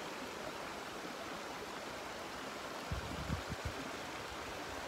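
Steady wash of sea water along a shallow shore. About three seconds in, a few short low rumbles of wind buffet the microphone.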